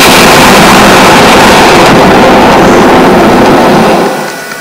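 A loud explosion sound effect that starts suddenly and rumbles on steadily for about four seconds before dropping away.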